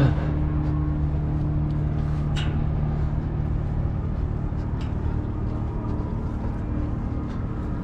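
Steady low hum of large ship machinery, a constant drone with a few faint taps over it.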